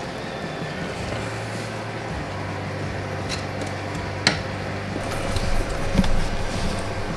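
Steady low hum of a running kitchen appliance, with a single sharp click about four seconds in and a few knocks near the end.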